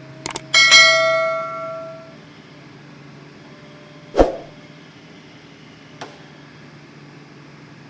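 Sharp knocks, then a loud ringing steel clang that dies away over about a second and a half, as the excavator handles logs against the steel of the logging truck. A heavy dull thud follows about four seconds in and a light knock at six, over the steady hum of a diesel engine running.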